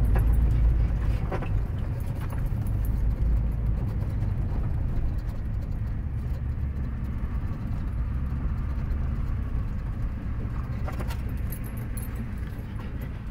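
RV driving slowly over gravel, heard inside the cab: a steady low rumble of engine and tyres that eases a little toward the end as it slows.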